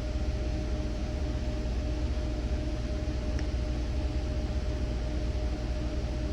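Steady background rumble and hum with a constant mid-pitched tone running through it, and one faint short tick about three and a half seconds in.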